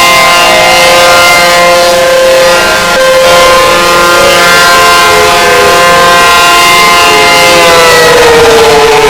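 Outdoor tornado warning siren sounding loudly during a test, holding a steady chord of several tones. Near the end its pitch starts to fall as it winds down.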